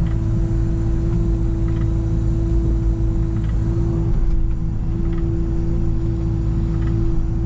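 Excavator running steadily while turning a pile, a constant engine rumble under a steady hydraulic-type whine, with a few faint light ticks.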